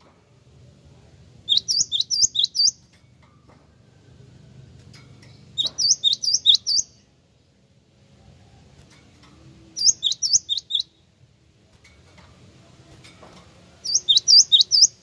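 Cinereous tit (gelatik wingko) singing: four short phrases about four seconds apart, each a quick run of five to seven sharp, high, repeated whistled notes.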